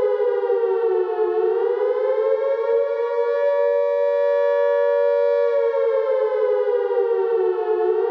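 Civil defense siren wailing: a loud held tone that sags in pitch about a second in and climbs back, holds steady, then slowly sags again near the end before rising once more.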